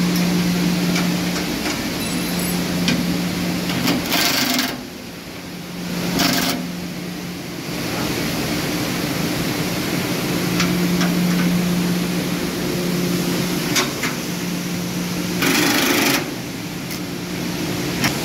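Cordless drill run in short bursts, twice for under a second each and once more briefly, fastening a centrifugal extractor fan to its steel base, with scattered metal clicks and taps between. A steady low hum runs underneath.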